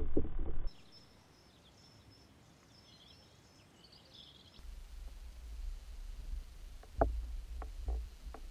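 Underwater action-camera sound: a low water rumble broken by several sharp clicks and knocks, the loudest about a second and a half before the end. Before that, after a brief burst of the same rumble at the start, a quiet stretch with faint high bird chirps.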